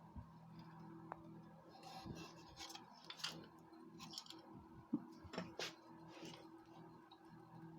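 Faint scattered clicks, taps and scrapes of small hard objects being handled, over a steady low hum.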